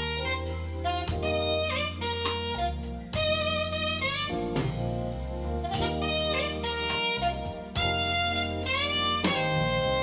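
Jazz band playing: an alto saxophone carries the lead melody with bends and runs over a bass line and a steady drum beat.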